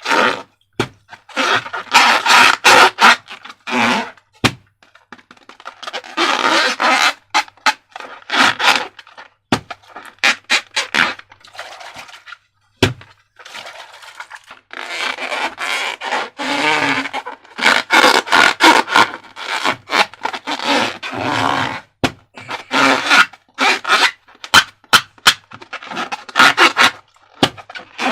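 Slime and rubber balloons being handled and squeezed: irregular bursts of wet squishing and scraping noise, broken by many sharp clicks.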